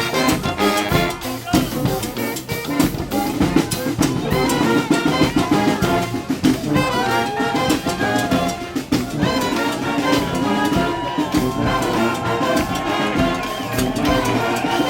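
Street brass band playing live: trumpets and other horns over a driving drum beat, with a horn holding a long note in the last few seconds.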